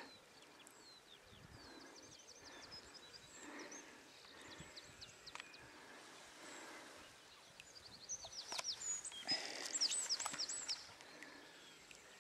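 A small songbird singing phrases of quick, high chirps, loudest and busiest near the end, with a few faint sharp clicks in between.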